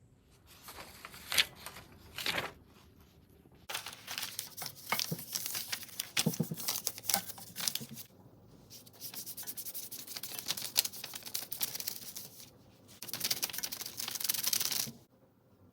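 Rubbing and scraping from kitchen food preparation, in four bursts with many sharp clicks, the last ending about a second before the end.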